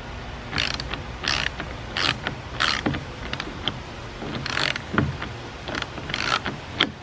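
Socket ratchet clicking in about seven short strokes, roughly every two-thirds of a second with a pause in the middle, as a nylon lock nut is tightened onto a screw through a canoe's foam side sponson.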